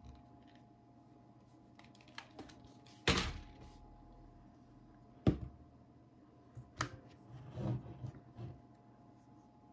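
Hard plastic knocks and clicks as a DJI Osmo Mobile 3 smartphone gimbal is handled and its folding arm and phone clamp are moved, with sharp knocks about three and five seconds in and a softer cluster of clicks near the end.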